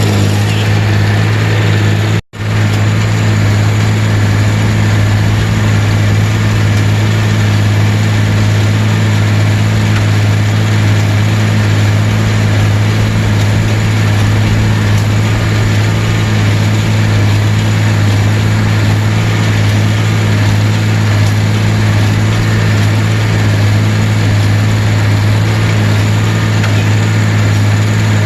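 A vehicle engine running at a steady, unchanging speed, a loud constant drone, cut off for a split second about two seconds in.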